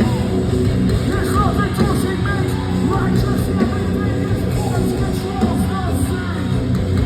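Loud rock music with singing and some voices over it, steady throughout.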